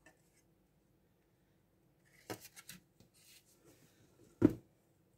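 Small plastic plant pots and a plastic storage box being handled: light rustling of leaves and plastic with small clicks, then one sharp knock about four and a half seconds in.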